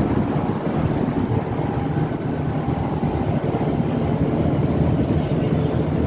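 Volvo B9TL double-decker bus heard from inside the lower deck while on the move: its six-cylinder diesel engine and road noise run steadily. Through it runs the vacuum-cleaner-like 'hoover' sound the bus has picked up.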